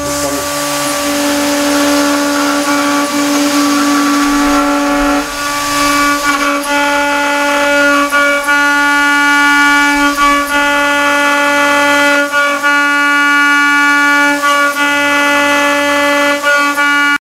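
CNC router spindle milling aluminium plate with a 6 mm single-flute end mill: a loud, steady whine made of several pitched tones over a hiss. The mix of tones changes about five seconds in, and the sound stops suddenly at the end.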